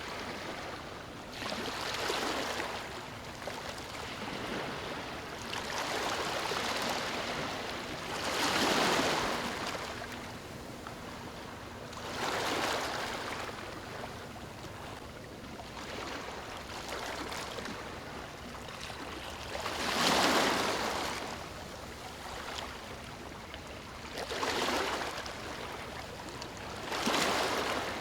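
Small waves lapping on a beach, each wash of water swelling and fading over a second or two, coming every few seconds at uneven intervals.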